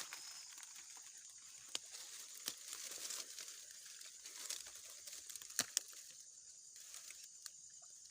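Faint rustling and crinkling with scattered sharp clicks, the loudest a pair of clicks about five and a half seconds in, over a steady high chorus of insects.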